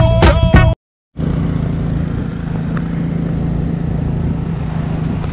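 Music briefly at the start, cut off abruptly, then a tuk tuk running steadily on the road, heard from inside the passenger carriage: an even engine drone with a constant low hum under road and wind noise.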